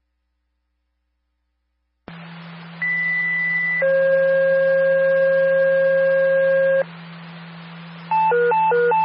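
Fire dispatch pager alert over a scanner. About two seconds in, the radio channel opens with static and a steady low hum. A short high tone follows, then a longer, lower tone: a two-tone sequential page that sets off the fire and first-aid pagers. Near the end comes a fast warbling alert tone that alternates between two pitches.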